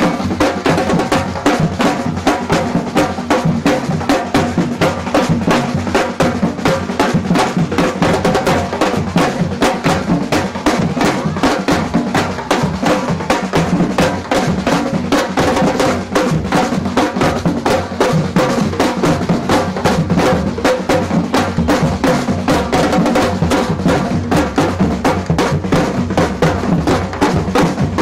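Samba percussion band playing a steady, driving beat on bass and snare drums, with sharp wood-block-like strokes, without a break.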